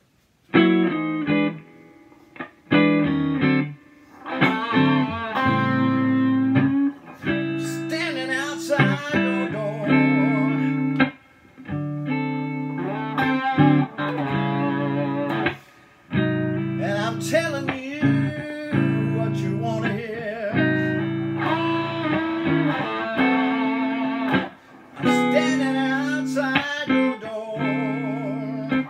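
Electric guitar playing a blues intro: chords and single-note licks with bent notes and vibrato, starting about half a second in, with a couple of short breaks.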